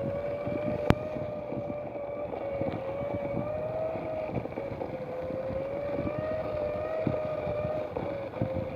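Fisher-Price Bubble Mower toy's small electric motor whining steadily, its pitch wavering slightly, with irregular rattling clicks as it is pushed over grass. There is one sharp click about a second in.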